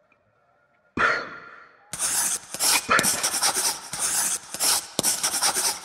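A sudden hit that fades away over about a second, then a run of quick, irregular scratchy strokes like a pen scribbling hard on paper.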